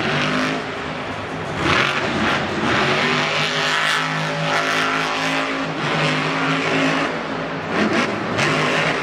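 Monster truck's supercharged V8 engine running at high revs during a freestyle run, the pitch held steady with surges about two seconds in and near the end.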